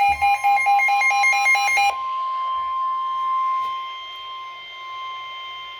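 Weather radios sounding an alert: one receiver's electronic alarm beeps in a rapid warble of alternating pitches until about two seconds in, over the steady NOAA Weather Radio 1050 Hz warning alarm tone, which carries on alone to the end and heralds a broadcast warning.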